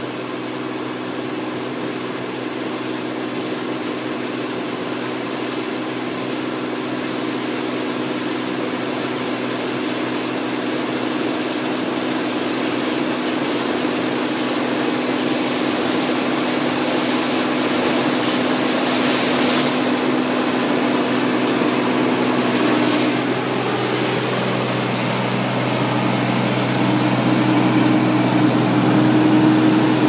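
1987 Massey Ferguson 850 combine running under load as it harvests corn: a steady engine and machinery drone with a low hum, growing louder as the combine comes closer. Its pitch steps up slightly about two-thirds of the way through.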